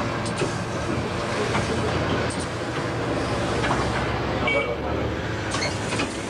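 Kyiv-12.05 trolleybus on the move, heard from inside the driver's cab: a steady low hum with road and traffic noise and a few small clicks.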